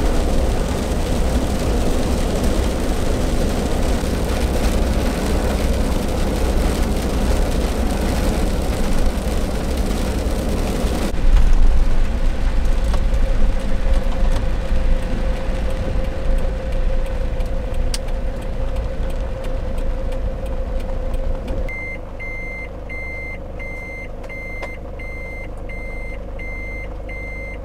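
Camper van driving on a wet road, heard from inside the cab: steady engine and tyre noise. About three-quarters of the way through it drops to a quieter engine hum with a high beep repeating about every 0.7 s, the van's reversing alarm as it backs into a parking space.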